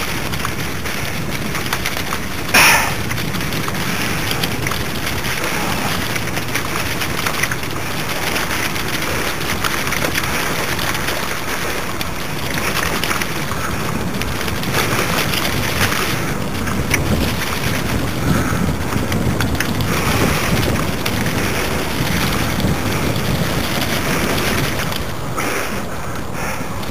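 Mountain bike riding down a wet, rocky, muddy trail: a steady rush of wind on the microphone over tyres running through water and rattling over stones. A single sharp clatter about two and a half seconds in stands out above the rest.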